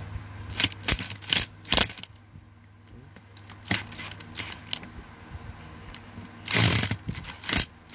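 Scattered clicks, knocks and rattles of metal electric-fan motor and gearbox parts and a cordless screwdriver being handled while the motor screws are tightened, with a denser cluster in the first two seconds and a half-second burst about six and a half seconds in.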